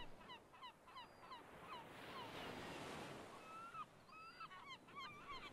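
Faint seaside sound of gulls: a run of short, sharp calls, several a second, over the wash of a wave that swells and fades in the middle.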